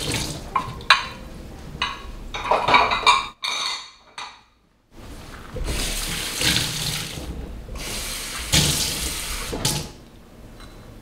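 Water running from a kitchen tap into a stainless-steel sink, with a few knocks and clatters in the first few seconds. It breaks off into near silence for about a second and a half, then runs again in two spells.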